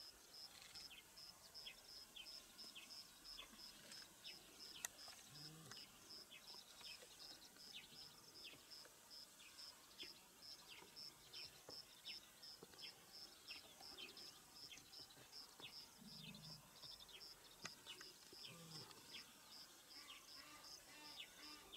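Faint wild ambience: an insect chirping at a high pitch about three times a second, with scattered short falling bird chirps.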